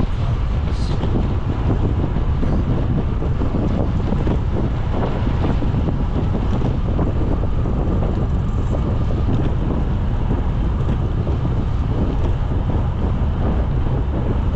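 Wind buffeting the microphone of a moving bicycle rider: a steady, heavy rush, mostly deep rumble.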